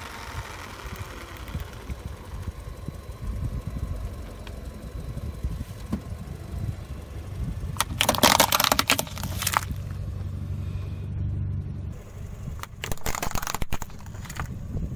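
Plastic toy helicopter cracking and snapping as a car tyre rolls over and crushes it, over the low rumble of the car's engine. The loudest cracking lasts about a second and a half just past the middle, with a second shorter burst near the end as the toy is flattened.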